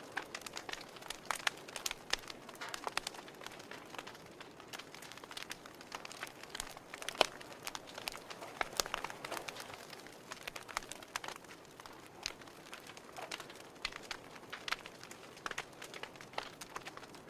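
Wood fire crackling: irregular sharp pops and snaps over a soft hiss, with one louder pop about seven seconds in.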